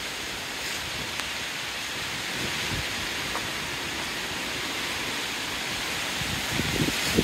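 Steady hiss of a storm in the trees, an even rushing noise without a break. Heavier low buffeting starts near the end.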